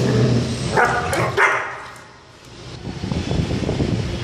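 Two German Shepherd puppies play-fighting: a low growl, then two short sharp barks about a second in, a brief lull, and rough scuffling and growling as they wrestle.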